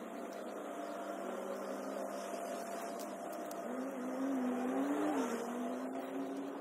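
Street traffic with a car passing by: its engine hum rises in pitch and loudness and then drops away about five seconds in.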